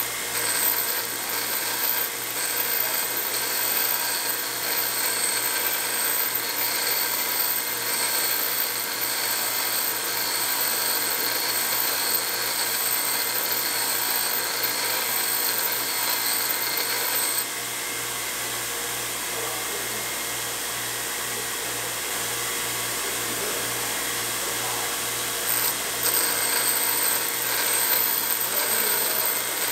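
Bench grinder running with its rough stone grinding the steel stem tips of Ford Model T engine valves, taking the extra height out of them so adjustable lifters can be used. The steady motor hum holds throughout, and the harsh grinding sound lessens for several seconds in the middle before picking up again near the end.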